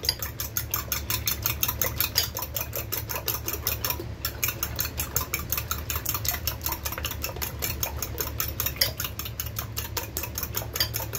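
A fork whisking raw eggs in a glass bowl, its tines clicking fast and evenly against the glass, about six strokes a second, with a brief pause about four seconds in.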